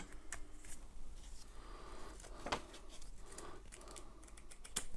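Faint rustling and a few light clicks of paper and cardboard packaging being handled, with the pages of a small printed phone manual being leafed through.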